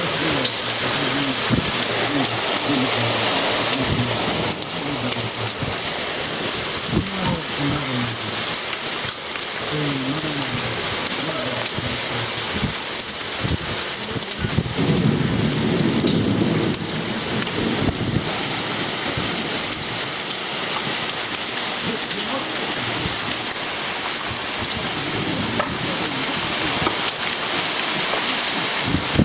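A hailstorm with rain: a steady hiss of downpour with many sharp ticks of hailstones striking tiled floor and hard surfaces.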